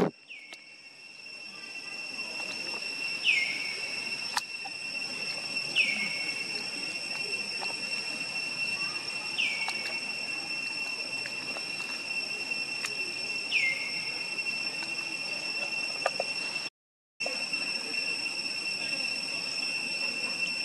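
Outdoor ambience: a steady high-pitched insect drone, with a bird's short falling call repeated about five times, every three to four seconds. The sound cuts out for a moment near the end.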